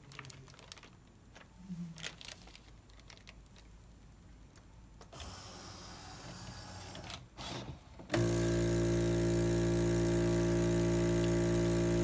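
Light clicks and rustling of a plastic bag being handled, then about eight seconds in the HIPPO vacuum sealer's pump switches on and runs with a steady hum, drawing the air out of the bag through the nozzle.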